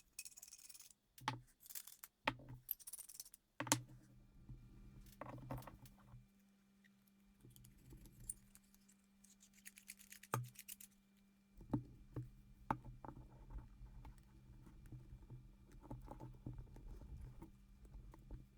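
Faint clicks, taps and rustling from small metal lightsaber hilt parts and electronics being handled, with a low steady hum from about four seconds in.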